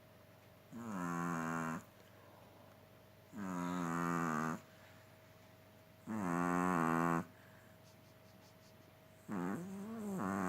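Chihuahua snoring in its sleep: four drawn-out, pitched snores about a second each, coming roughly every two and a half seconds, the last rising and falling in pitch.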